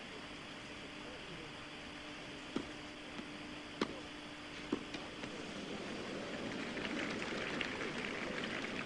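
Tennis ball struck by rackets three times, sharp hits about a second apart: a serve, a hard return of serve and one more shot. The crowd then applauds the point, growing louder toward the end, over the steady hiss of an old TV broadcast recording.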